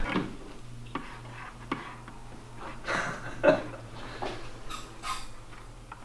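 Light knocks and clatter of a plastic five-gallon bucket being handled, with a few short scratchy strokes of a marker writing on its side near the end.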